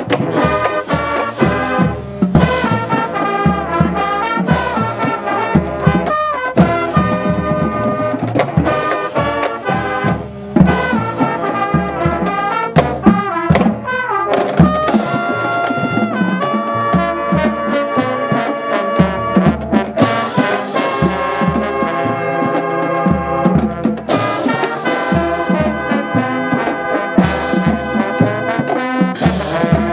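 Brass-led instrumental music with a steady drum beat.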